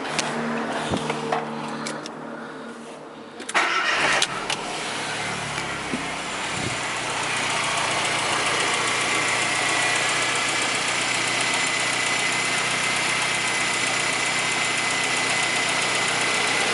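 Volkswagen Saveiro's AP flex engine started about three and a half seconds in, then idling steadily. The accessory belt now runs without its earlier noise on a new tensioner: the old tensioner was bent and had pulled the belt out of line.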